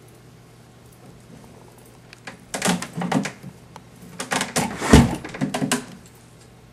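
Sliding glass door of a reptile enclosure being moved, rattling and knocking in its track in a string of clatters, with one heavy thump about five seconds in.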